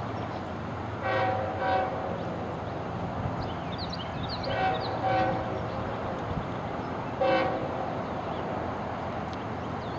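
Union Pacific freight train's locomotive horn sounding short blasts, two pairs and then a single one, over the steady low rumble of the train as it starts to move.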